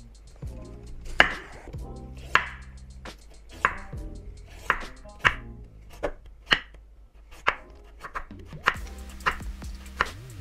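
Chef's knife cutting a carrot on a wooden cutting board: a sharp knock each time the blade goes through onto the board, roughly once a second.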